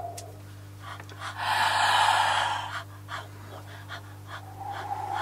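A person breathing hard into a close microphone: one long, loud gasping breath, then quick short panting breaths, about two or three a second, over a steady electrical hum. A sustained electronic tone fades back in near the end.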